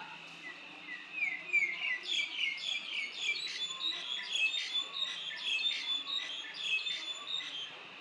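Black-collared starling singing: a rapid, varied run of chirps and whistled notes that starts about a second in and stops shortly before the end, over a steady high-pitched background hum.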